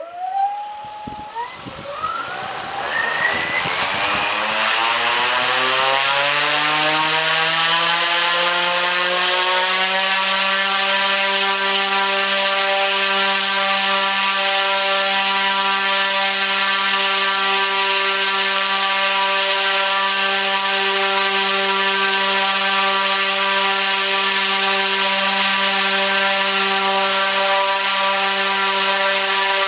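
T-Motor U13 (100kV) brushless motor driving a 29x9.5 three-blade carbon propeller, spooling up to full throttle: a rising whine and propeller drone that climbs in pitch and loudness over about the first ten seconds, then holds a steady pitch.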